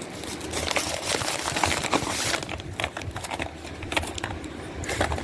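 A parcel being opened by hand: packaging crinkling and rustling, with many quick clicks and taps, busiest about a second or two in.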